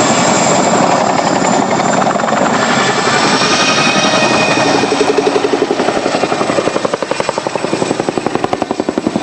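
Boeing Chinook tandem-rotor helicopter flying a display manoeuvre: a rapid, steady rotor chop with a high turbine whine over it, the chop pulsing more strongly in the second half.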